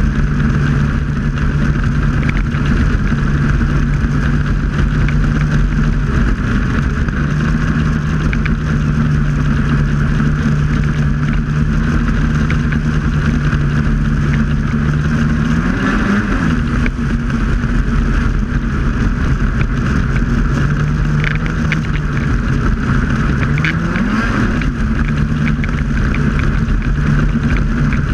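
Snowmobile engine running steadily at cruising speed, heard from on the sled, with a band of track and wind noise. The engine note briefly swings up and down in pitch twice, about halfway through and again near the end.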